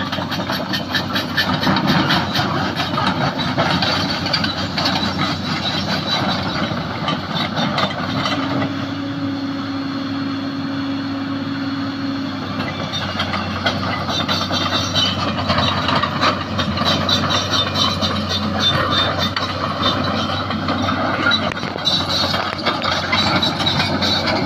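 Sany SY215C hydraulic excavator working: its diesel engine runs steadily under load with the hydraulics, while a steady hum holds for about four seconds near the middle.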